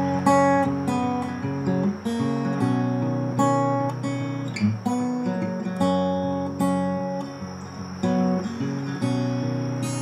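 Background music: acoustic guitar chords, struck about once a second and left to ring.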